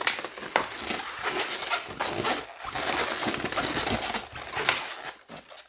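Latex modelling balloons rubbing and squeaking against each other as they are twisted and wrapped together by hand, with constant crinkly rubbing and short squeaks. The handling tails off near the end.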